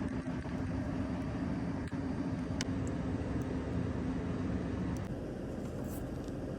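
A steady low machine hum, with a faint click about two and a half seconds in; the hum changes and drops a little about five seconds in.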